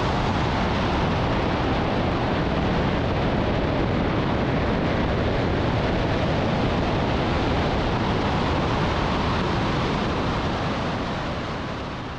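Steady rush of airflow over the microphone of a glider in flight, with no engine note, fading away near the end.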